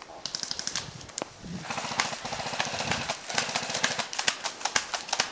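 Running footsteps crunching through dry forest undergrowth, with twigs and branches crackling and brushing past, in quick uneven clicks that grow busier and louder about a second and a half in.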